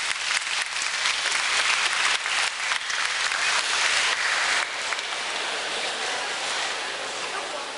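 Audience applauding in a reverberant church, the clapping thinning and dropping in level about four and a half seconds in.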